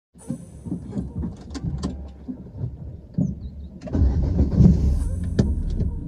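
Car's cabin rumble from engine and road, with scattered small knocks and rattles; it grows louder and noisier about four seconds in.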